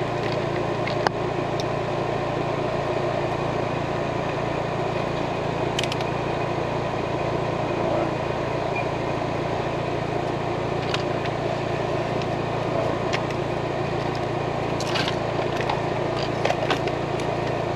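Steady hum of air-conditioning equipment running, with a few brief clicks and taps from handling multimeter test leads.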